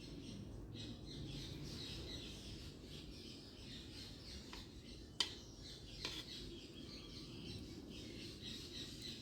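Faint background bird chirping, with a light click about five seconds in and a softer one a second later.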